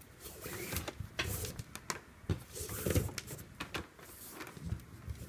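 Paracord strands rustling and swishing as they are pulled through a woven collar, with scattered soft clicks and brushing noises from handling the cord and a metal D-ring.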